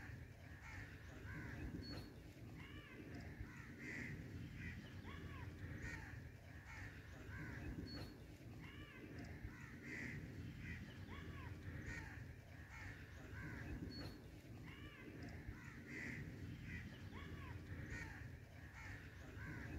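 Crows cawing repeatedly and faintly, with a short high chirp about every six seconds.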